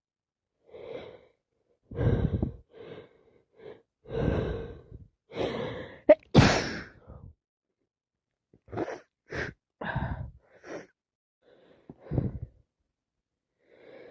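A person with a heavy cold sneezing again and again, with short gasping breaths between the sneezes. The loudest sneeze comes about six and a half seconds in, followed by a short pause before more.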